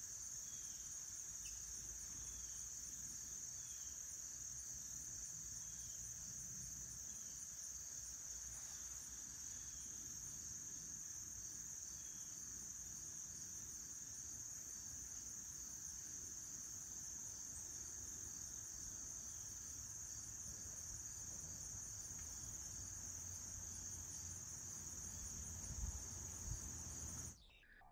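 Steady, high-pitched chorus of insects trilling continuously over a faint low rumble. A couple of low bumps come just before it cuts off suddenly near the end.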